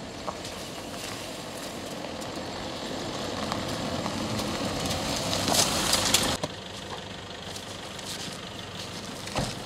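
Toyota Hilux pickup truck approaching slowly on a dirt road, its engine and tyres growing steadily louder before the sound cuts off abruptly about six seconds in. Quieter handling sounds follow, with a thump near the end.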